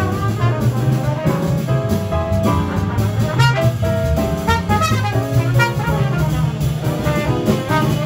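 Live small-group jazz: a trumpet plays a quick line of notes over upright piano and double bass.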